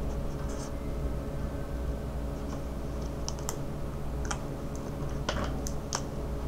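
Scattered light clicks and taps as marker pens are handled, the black marker put down and a red one picked up, over a steady low hum.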